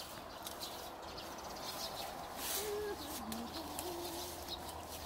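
A dove cooing in the background: a few low, held notes with one step down, a little over halfway through. Soft rustling of feet moving through grass runs underneath.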